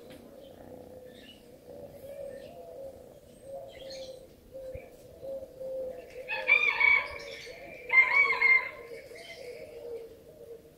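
Two drawn-out kitten mews, each about a second long and a second and a half apart, over a continuous low wavering tone.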